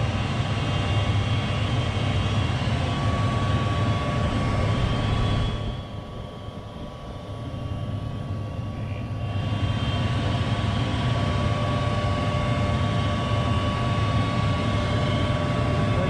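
Goodman propane furnace starting up and running, a steady fan hum with a thin whine. It drops away for a few seconds about midway, then builds back up. The furnace is firing again after its tripped rollout switches were reset.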